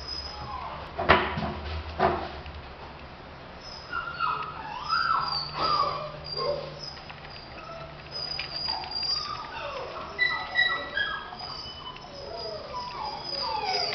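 Dogs whining and yipping: many short high calls, often falling in pitch, in quick succession, with a couple of sharp knocks in the first two seconds.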